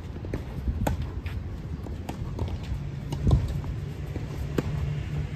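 Tennis rally on a clay court: sharp pops of racket strikes and ball bounces, the loudest hit about three seconds in, over a steady low hum.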